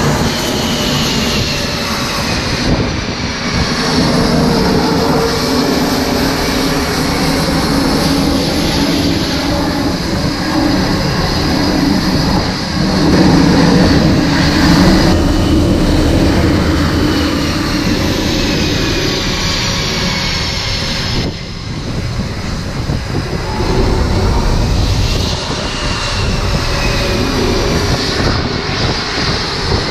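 F/A-18 Super Hornet twin turbofan jet engines on a carrier flight deck: a loud, continuous jet roar with high whines that fall in pitch. It is loudest around the middle, as a jet lands and rolls out up the deck.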